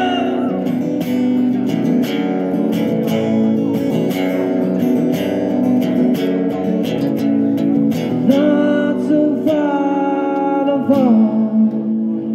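Acoustic guitar strummed steadily in an instrumental break. A man's voice comes back in about eight seconds in with long sung notes that bend in pitch.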